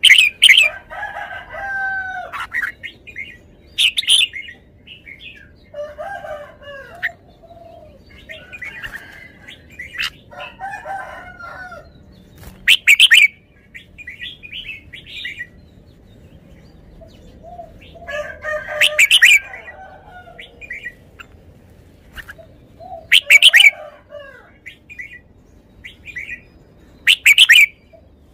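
Red-whiskered bulbul singing: loud, sharp whistled phrases that recur every few seconds, with softer chattering warbles in between.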